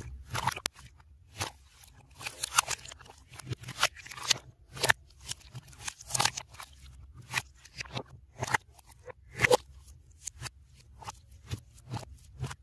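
Clear purple slime being squished and stretched by hand: an irregular run of sticky pops and crackles, a few each second, with the audio played in reverse.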